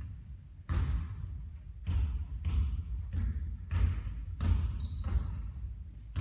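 A basketball bouncing on a court: a run of thuds, about one a second, some closer together. Two short high squeaks come near the middle and later.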